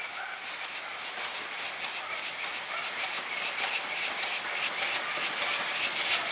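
Steam locomotive hauling a train of coaches, approaching and growing steadily louder, its exhaust beats coming through more sharply near the end.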